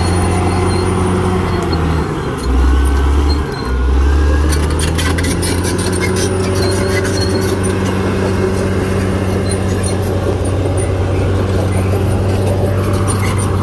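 Caterpillar D6R XL bulldozer's diesel engine running steadily. Its note drops deeper and louder twice between about 2 and 4 seconds in, as it takes load. Rapid clicking and rattling runs over the engine from about 4 seconds on.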